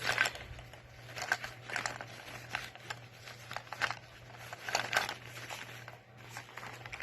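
Packaging crinkling and rustling in irregular handfuls as a small gift bag is opened and its contents handled, over a low steady hum.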